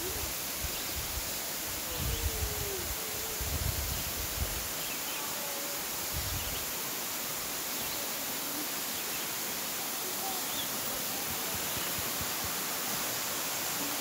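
Steady rushing of a waterfall, an even hiss of falling water. Irregular low rumbles come and go during the first half.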